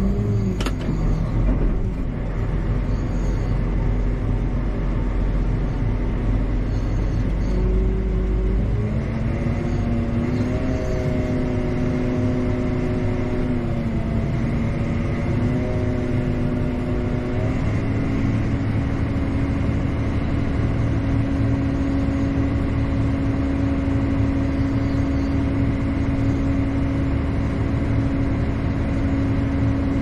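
Tractor engine running, heard from inside its cab, with a deep rumble for the first several seconds. Its note steps up and down between about 8 and 18 seconds in, then holds steady.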